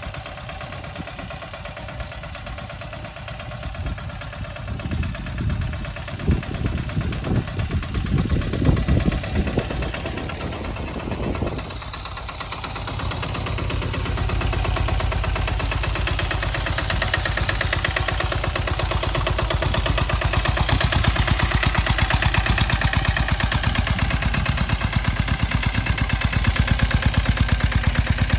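Engine of a sanedo, a motorcycle-based mini tractor, running steadily as it pulls a groundnut seed drill, with a rapid even chugging. For roughly the first twelve seconds it is farther off under irregular low thumps and buffeting; after that it is close and louder, and it grows louder again about twenty seconds in.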